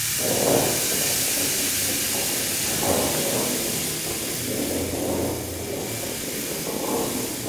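Hissing, breathy texture from a free-improvised trumpet and drum performance: a steady airy wash with soft swells about every two seconds.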